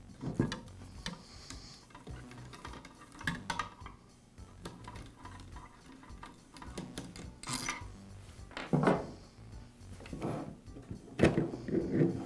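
Clicks, light metal clinks and rubbing from a long screwdriver turning out the gearbox screws of a Makita angle drill and from the drill being handled on a wooden bench. A few louder knocks come now and then, the loudest about nine seconds in and another near the end, as the gearbox is worked free of the motor housing.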